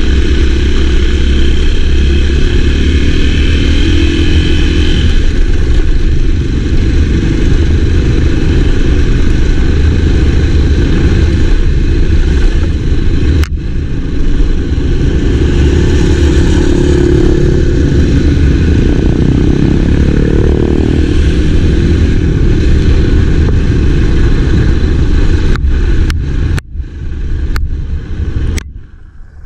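Enduro dirt bike engine running under way, loud and steady, breaking off sharply several times near the end.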